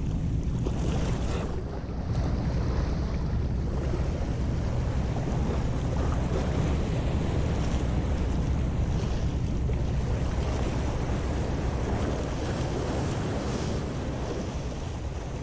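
Wind buffeting the microphone, with sea waves washing and breaking against the rocks of a breakwater.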